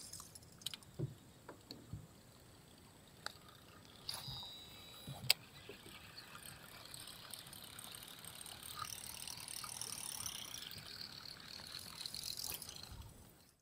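Baitcasting rod and reel being cast and worked from a small boat: scattered light clicks and knocks over a faint steady hiss, with one sharper click about five seconds in.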